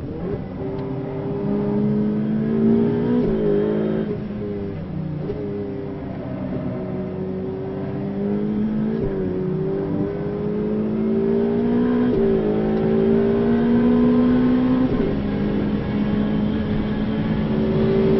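Ferrari 488 Pista's twin-turbo V8 heard from inside the cabin, driven hard on track: its pitch climbs steadily and breaks at several gear changes.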